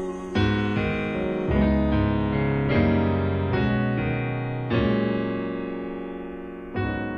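Music: a solo electric piano playing slow chords, each struck and left to ring and fade before the next.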